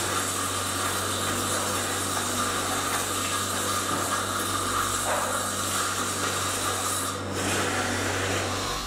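Brake shoe pieces being pressed and rubbed into place along metal rails, a continuous scraping rub, over a steady low machine hum.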